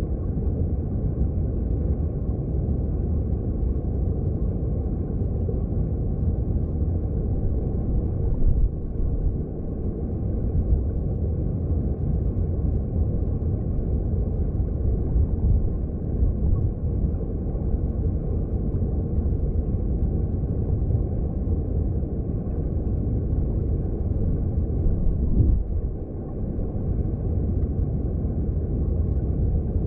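Mountain stream heard underwater: a steady low rumble of rushing water, dull and without hiss, with two brief surges.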